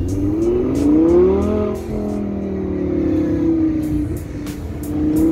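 Car engine accelerating hard: its pitch climbs for about a second and a half, drops at a gear change, eases off, then climbs again near the end.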